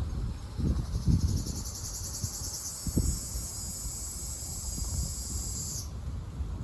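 A Ryukyu large brown cicada sings a high, sizzling buzz made of very fast pulses, which stops abruptly near the end. Wind rumble and a few low thumps sound underneath.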